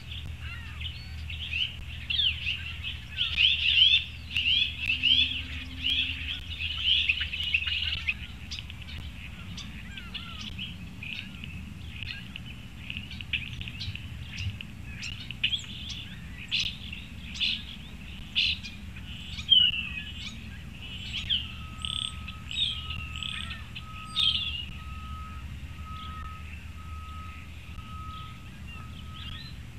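Small songbirds chirping and singing, busiest in the first several seconds and sparser after. Later a bird repeats a short lower note a little faster than once a second, over a faint low rumble.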